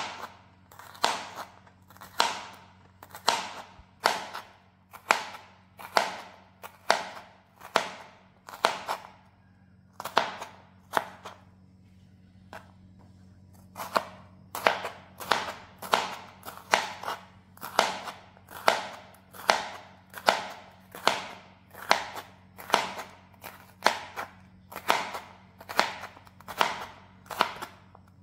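Kitchen knife slicing raw bitter melon on a plastic cutting board: a crisp crunching cut about once a second, pausing for about two seconds near the middle, then going on slightly faster.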